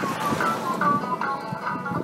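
Banjo music: a quick run of short plucked notes.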